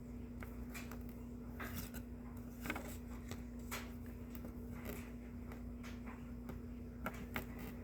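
Faint, irregular clicks and rustles of cardboard trading cards being handled and flipped through one by one, over a steady low hum.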